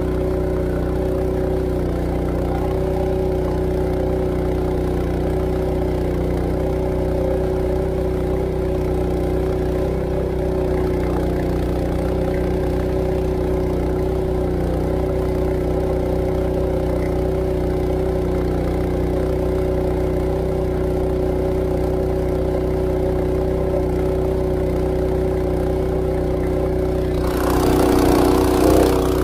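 Honda GX200 single-cylinder four-stroke engine on a longtail ketinting drive, running steadily at high throttle to push a wooden canoe at speed, its pitch holding even. About 27 seconds in, a louder rushing hiss of the wake's spray joins it.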